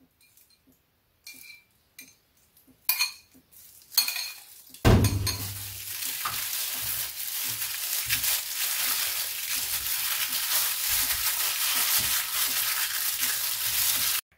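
A few light clinks, then a loud, steady sizzle of food frying in hot oil in a pan starts suddenly about five seconds in and crackles on until it cuts off near the end.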